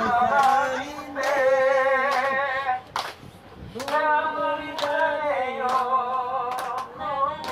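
A person singing a song in two long, drawn-out phrases with a short pause between them, with a few sharp claps.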